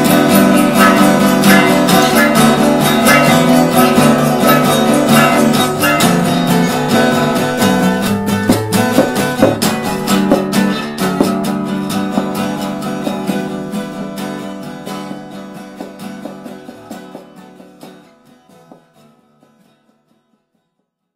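Guitar-driven band music with a fast strummed pulse, fading out steadily over the second half to silence just before the end.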